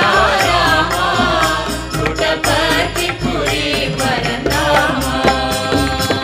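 Hindu devotional bhajan to Rama, a sung melody carried over regularly repeating drum strikes.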